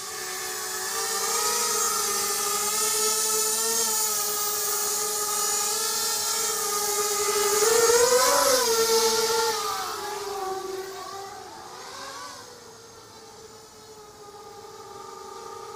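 ZMR250 racing quadcopter's brushless motors and 5030 props whining in flight, the pitch wandering with the throttle. It gets loudest with a rise and fall in pitch about eight seconds in as the quad comes close, then fades as it flies off.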